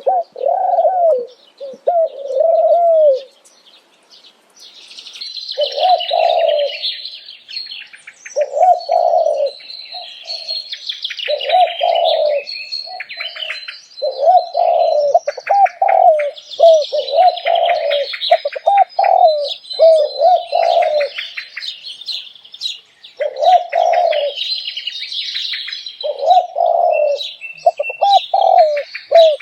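Doves cooing in short repeated phrases, each coo a low note that rises and falls, with gaps of a second or two between phrases. Smaller birds chirp and twitter rapidly over them from about five seconds in.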